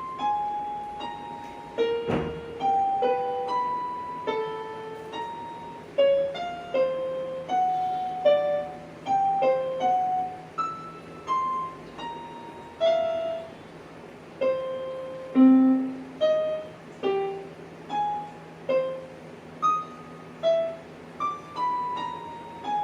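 Electronic keyboard in a piano voice playing a slow melody one note at a time, each note ringing and fading before the next.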